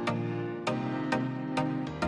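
Background music: pitched instrumental notes struck on a steady beat about twice a second.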